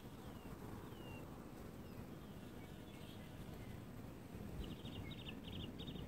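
Faint bird calls: a short high chirp falling in pitch, repeated about once a second in the first two seconds. A little after four seconds in come a few short bursts of rapid high clicking. A low rumble of wind on the microphone runs under it all.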